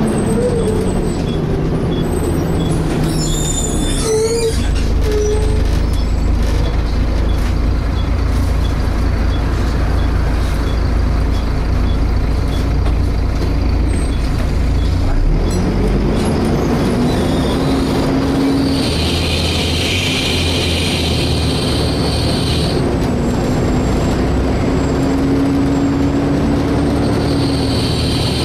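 Volvo B7TL double-decker bus under way, heard from inside: a steady low engine rumble, with the engine note climbing twice as the bus pulls away and accelerates. In the second half a loud hissing rush switches on and off, and a thin high whine sounds near the end.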